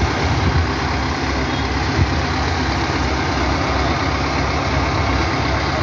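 Truck-mounted mobile crane's diesel engine idling steadily.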